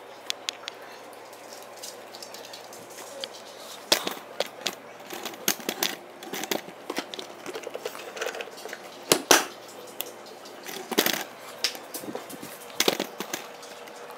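Dog bowls being handled on the floor: irregular sharp clicks and clinks, some coming in quick clusters.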